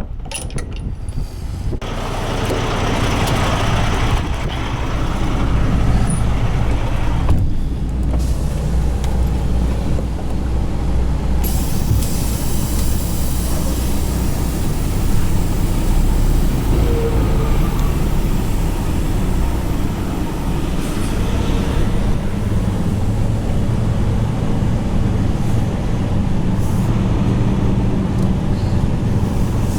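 Semi truck's diesel engine running steadily with a low hum, and a rushing hiss for several seconds near the start.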